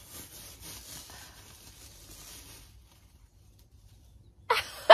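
Faint rustling of a rubber balloon rubbed against hair, then a short cluster of sharp, loud squeaks near the end.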